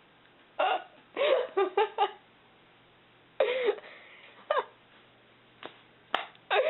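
A person's stifled giggling in short separate spurts, with a quick run of laughs about a second in and another burst near the end.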